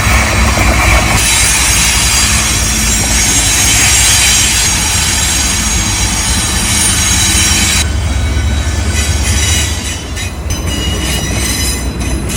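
Long train passing close by: a loud, steady rumble of wheels on rail with high metallic wheel squeal. In the last few seconds the noise thins and turns uneven as the train slows to a stop.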